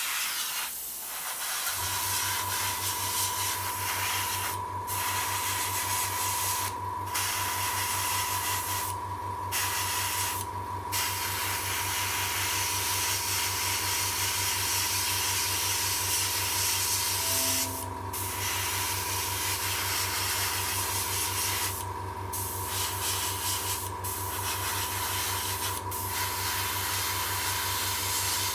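Airbrush spraying acrylic paint, a hiss of air and paint that stops briefly several times as the trigger is let off. About two seconds in, a small airbrush compressor starts up and runs steadily underneath with a low hum and a faint whine.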